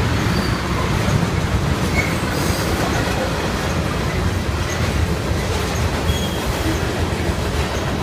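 CN mixed freight train's tank cars and covered hoppers rolling past close by: a steady low rumble of wheels on rail, with a few faint, short wheel squeals.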